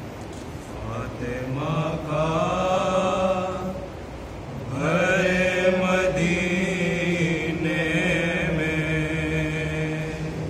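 Unaccompanied male voice reciting an Urdu marsiya, a Shia elegy for Fatima, in long held, slowly bending melodic notes. Two phrases, with a short break about halfway through.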